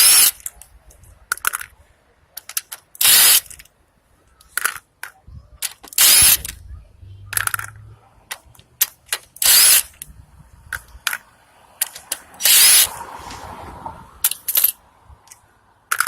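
A cordless power tool spinning lug bolts out of a rear wheel hub, in five short bursts about three seconds apart, with light clicks and clatter between them. The bolts were already broken loose, so each one spins out quickly.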